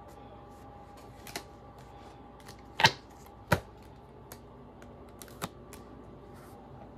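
Tarot cards handled and laid down on a wooden desk: a scatter of sharp taps and clicks, the two loudest close together near the middle, over a faint steady hum.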